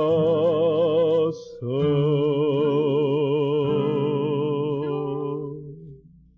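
Hymn singing with vibrato over sustained accompaniment, the closing word held as a long final note that fades out near the end.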